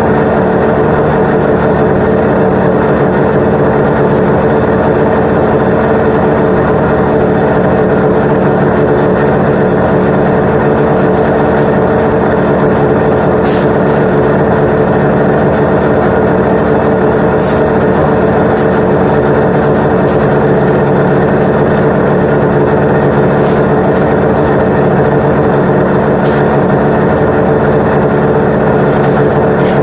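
1996 Arctic Cat ZRT 800 snowmobile's three-cylinder two-stroke engine running steadily at a constant speed with no revving, after repairs to its ignition and reeds and carb tuning that have it running smoothly.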